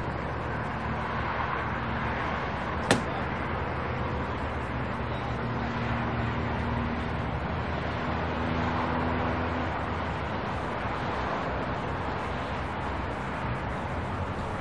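Steady hum of road traffic passing at night, with a single sharp click about three seconds in.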